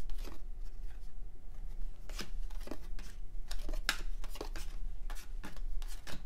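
Cardboard trading cards handled in a stack: cards slid off one at a time and laid down on a table, in scattered light clicks and rustles.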